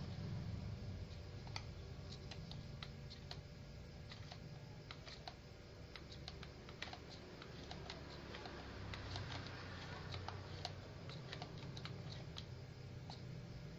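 A run of irregular light clicks, several a second, over a steady low rumble.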